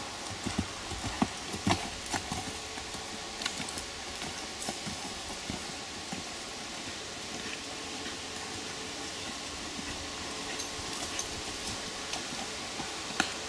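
Horse's hooves striking a dirt arena, irregular knocks that are loudest and most frequent in the first few seconds, then thin out. A steady hiss runs underneath, with a faint steady hum from about halfway through.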